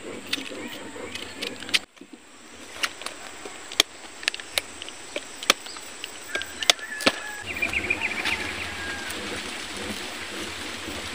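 Knife cutting young corn and then a small pumpkin by hand, a string of sharp clicks and scrapes. From about seven seconds in, wind rumbles on the microphone.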